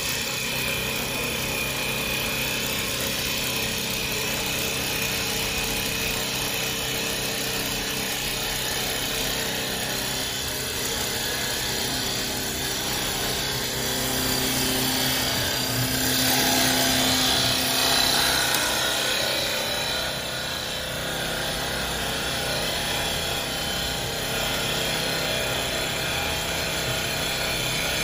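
CNC wood turning lathe running, turning and cutting a wooden spindle, a steady machine hum with a tone that comes in and grows louder for a few seconds past the middle.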